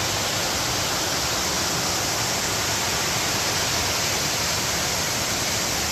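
Waterfall and stream water rushing: a steady, even roar of falling water.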